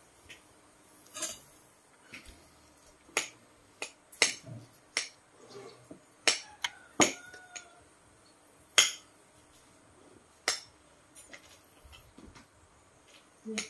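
A metal spoon clinking against a ceramic bowl of fried instant noodles as someone eats: about a dozen sharp clinks at irregular intervals.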